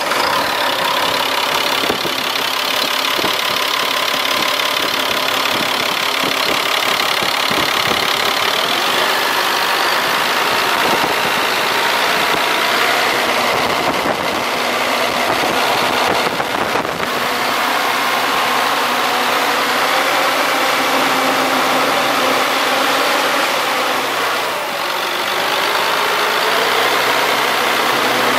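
Caterpillar 3126B diesel engine idling steadily, heard close up in the open engine bay, a moment after being started.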